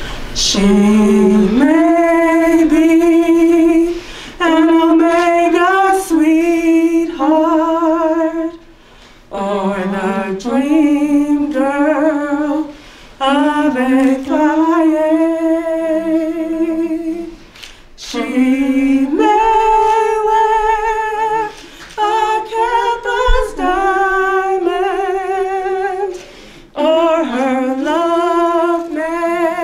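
A woman singing solo without accompaniment, in long held phrases separated by short pauses.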